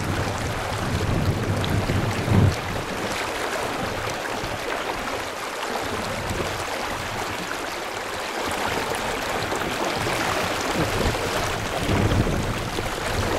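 Fast-flowing river rushing steadily over a shallow gravel bed, with a low rumble on the microphone about two seconds in and again near the end.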